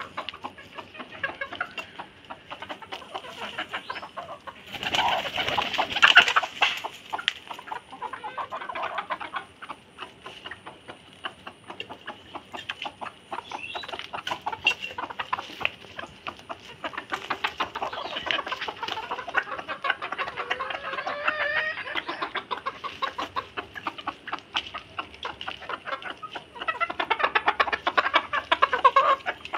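Hens clucking while hens and pigeons feed, with a dense patter of beaks pecking grain off stone paving. A short loud flurry of wings comes about five seconds in.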